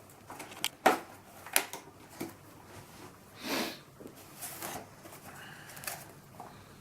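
Handling noise from a fixed-wing drone's airframe as its wings are taken apart: a few sharp clicks and knocks, the loudest about a second in, with short rubbing or sliding sounds later on.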